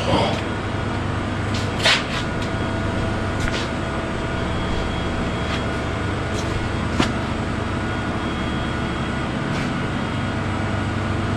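Steady low machine hum with a few short clicks and knocks.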